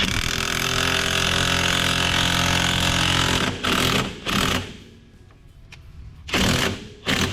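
Impact wrench hammering a nut down onto a wheel stud on a side-by-side hub, drawing the stud: one long run of about three and a half seconds, then four short bursts. It is driven far enough that the parts smoke.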